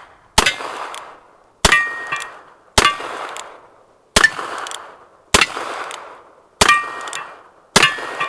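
Seven revolver shots from a pair of Uberti Cattleman single-action revolvers, about one and a quarter seconds apart. Each shot is followed by the ringing clang of a steel target being hit.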